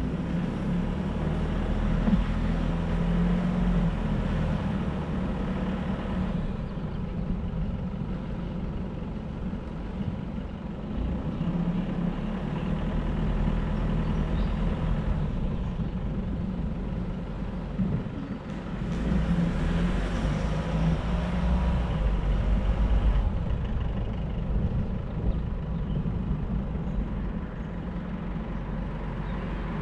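Road vehicle driving: steady engine hum and tyre-and-road noise. The noise swells louder twice, in the first few seconds and again around twenty seconds in.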